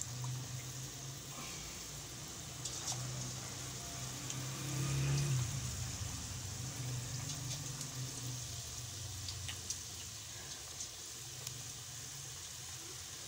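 Batter-coated potato wedges deep-frying in hot oil: a steady sizzle with scattered small crackles and pops, louder for a moment about five seconds in, over a low steady hum.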